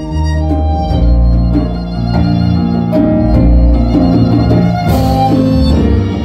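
Violin playing a melodic solo line over a live band's double bass and keyboard accompaniment, with a cymbal crash about five seconds in.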